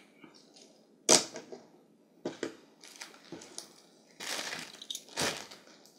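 Handling noise from a die-cast metal toy car turned over in the fingers: a few small sharp clicks and taps, the sharpest about a second in and near the end, with a short scraping rustle just after four seconds in.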